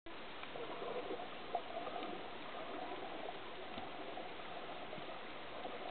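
Muffled underwater sea noise picked up by a submerged camera: a steady wash and hiss of water with a few faint ticks, the sharpest about one and a half seconds in.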